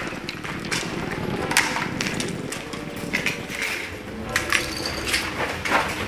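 Boots stepping and crunching on a debris-strewn floor in irregular footsteps, with a low steady tone underneath.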